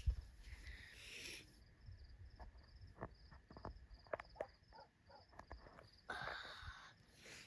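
Crickets chirping faintly in a steady, evenly pulsed rhythm, with a few scattered faint clicks and two brief rustles, one near the start and one about six seconds in.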